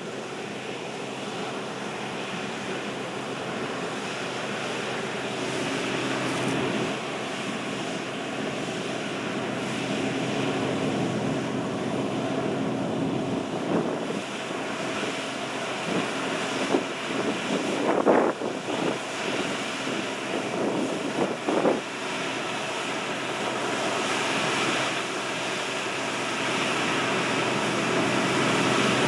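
New Holland combine harvesters running, a steady mechanical drone of engines and threshing gear, with a few brief louder swells about 18 and 21 seconds in.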